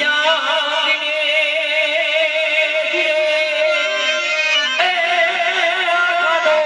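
Gujarati folk music: a long, wavering melody note held over accompaniment, moving to a new note about five seconds in.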